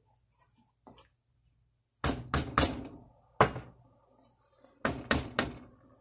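A spoon knocking against a cooking pan: three quick strikes about two seconds in, one louder strike soon after, and three more quick strikes near the end.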